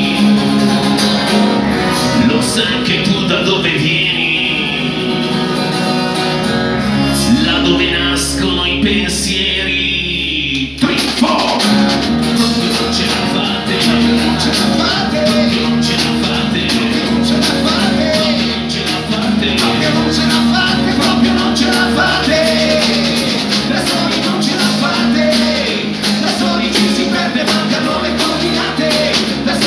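Acoustic punk rock played live by a band: strummed acoustic guitars, acoustic bass guitar and a snare drum with cymbal behind a male lead singer. About eleven seconds in the band drops out for a moment and comes straight back in at full strength.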